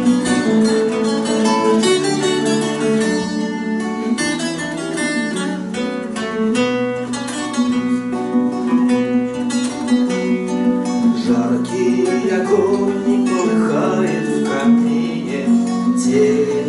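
Several acoustic guitars strumming and picking the introduction of a bard song; a voice starts singing about two-thirds of the way in.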